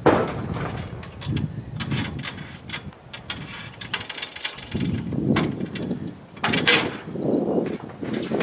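Irregular clicks, knocks and handling noise of hand work on a rooftop solar racking: nuts, washers and bolts being fitted to the mounting rails.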